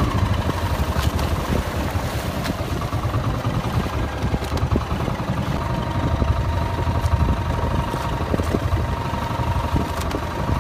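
Engine of a motorized outrigger boat running steadily, a dense low rumble, with a faint steady whine coming in about halfway through.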